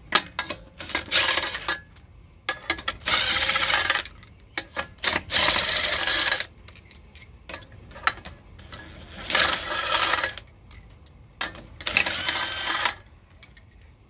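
DeWalt cordless impact gun spinning lug nuts off a truck wheel in five bursts of about a second each, with metal clinks of the loosened lug nuts being handled between them.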